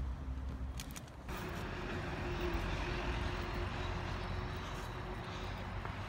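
Distant engine drone: a steady low rumble with a faint steady hum coming in about a second in.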